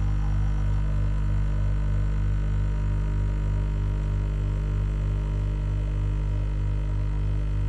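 Bosch Tassimo coffee machine running with a steady low electric hum and a faint regular pulsing.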